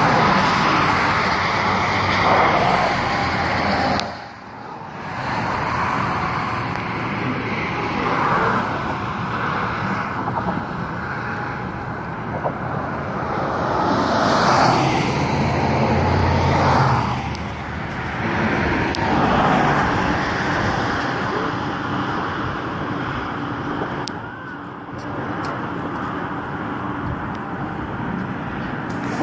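Steady road traffic, tyre and engine noise swelling and fading as cars pass one after another, with a brief lull about four seconds in.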